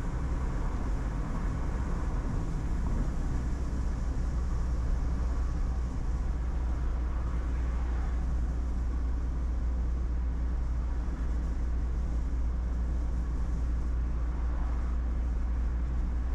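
Steady road and engine rumble inside a moving car's cabin, heard while the car is driven at road speed.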